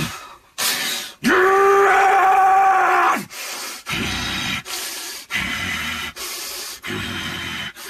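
A man's vocal efforts recorded for ADR: a sharp breath, then a long strained yell held at one pitch for about two seconds, followed by three shorter, lower grunting breaths.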